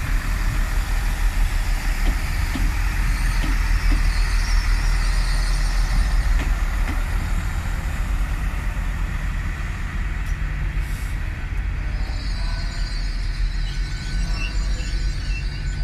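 GWR Class 166 Turbo diesel multiple unit running past, with a steady low rumble from its underfloor diesel engines and wheel-on-rail noise. About three-quarters of the way through, the sound changes to a lighter, steadier railway rumble.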